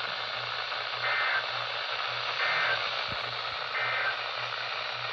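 Radio receiver static: a steady hiss over a low hum, with three short beeps about a second and a half apart.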